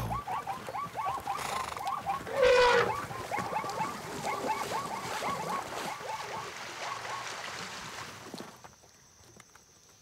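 Plains zebras calling in a rapid run of short repeated barks, cut across about two and a half seconds in by a brief loud elephant trumpet as the elephants drive them from the waterhole. The calls die away near the end.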